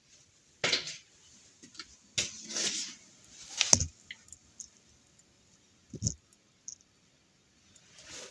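A few irregular knocks and clicks with quiet gaps between them, the loudest a little under four seconds in.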